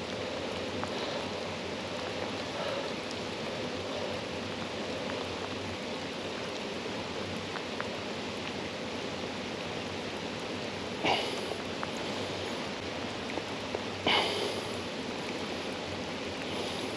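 River water running steadily, with two short splashes about eleven and fourteen seconds in.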